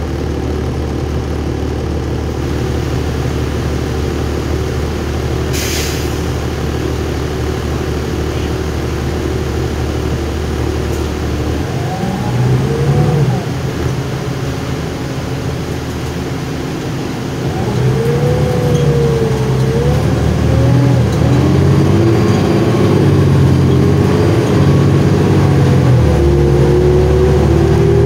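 A 2007 New Flyer D40LF transit bus's 8.9-litre Cummins ISL diesel heard from on board. It idles steadily at first, with a short hiss about six seconds in. From about twelve seconds in the bus pulls away: the engine revs up and drops back as the Allison five-speed automatic shifts, growing louder, and a rising whine comes in near the end.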